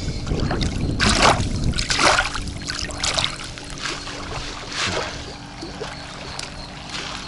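Lake water splashing and lapping at the shore in a few uneven surges, with a low rumble in the first two seconds.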